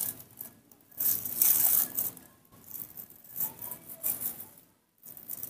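Irregular rattling, clinking and rustling handling noises while food is prepared, in several bursts, loudest a little over a second in.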